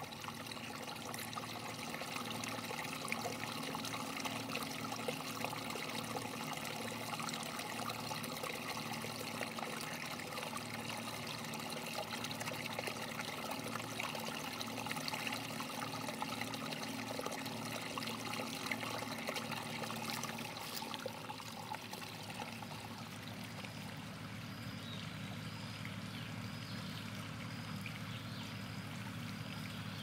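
Water from a small cascade splashing and trickling over rocks into a stream pool, a steady rush. Over the last few seconds a faint high chirp repeats about once a second.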